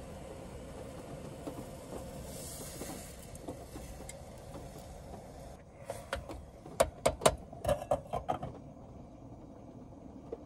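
Portable butane stove burning with a steady hiss, then a quick run of sharp clicks and knocks about six to eight seconds in.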